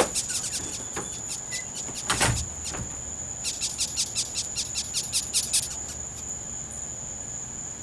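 Night insects calling: a steady high-pitched trill, with a quick run of high clicks for about two seconds around the middle and a single dull thump a little before it.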